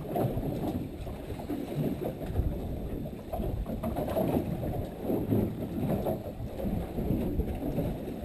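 Low, uneven rumble of a fishing boat out on the sea.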